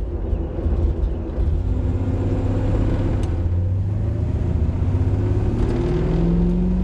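Big-block Chevy V8 of a Pontiac Tempest hot rod pulling away at low speed, its note rising gradually as the car gathers speed, heard from inside the cabin. It runs cleaner on a new spark plug that replaced a fouled one.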